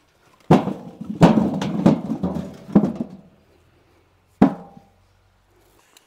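Potatoes tipped from a wicker basket tumbling into a metal wheelbarrow tub, a rapid run of hollow thuds over about two and a half seconds, then one more knock with a brief ring from the metal.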